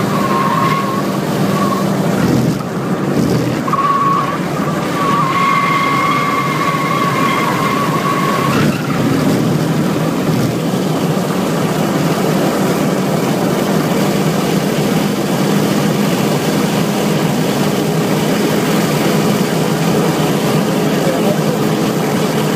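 Honda Civic 1.4 at racing speed, heard from inside the cabin: the engine runs steadily under load over road noise. For the first eight seconds or so the tyres squeal on and off through a corner, then only the steady engine and road noise remain.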